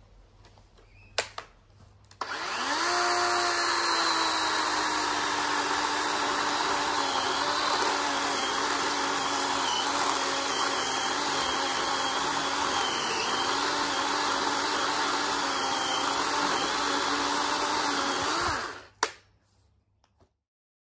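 DeWalt DCM565 18V brushless cordless chainsaw spinning up about two seconds in and cutting through a branch with a steady motor whine, which dips slightly under load, for about sixteen seconds, then winding down. A sharp click comes just before it starts and another just after it stops.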